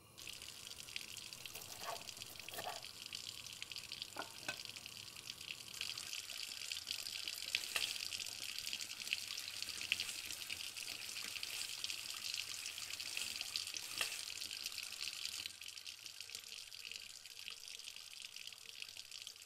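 Food sizzling in a frying pan over a gas burner: a steady crackling hiss that starts suddenly and eases slightly near the end.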